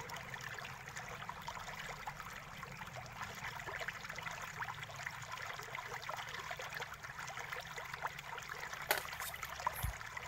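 Small tools working on a laptop's plastic bottom cover: faint scraping and small clicks over a steady hiss. A few sharper clicks and a low thump come near the end as the access cover is pried off.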